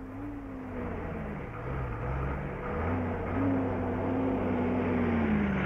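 Bedford KM lorry's six-cylinder diesel engine running as the truck creeps forward, growing louder; its pitch falls, rises again about three seconds in, then slowly sinks toward the end.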